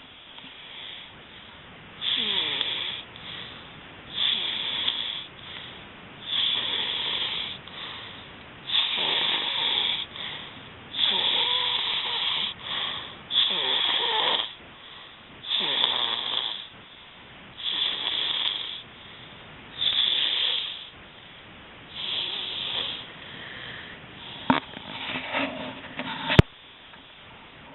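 Snoring, one loud snore roughly every two seconds, with a few sharp clicks near the end.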